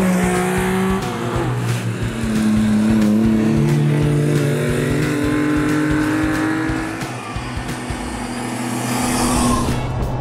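Suzuki Cappuccino kei car's small turbocharged three-cylinder engine running hard on the road, its engine note holding and then stepping to a new pitch several times.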